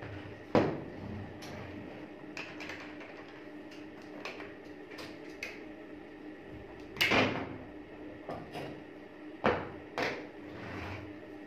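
Clicks and knocks of a single-barrel shotgun being taken apart on a wooden table, metal and wood parts handled and set down as the fore-end is pried off. There is a sharp knock just after the start, the loudest cluster about seven seconds in and two more knocks a couple of seconds later, over a steady low hum.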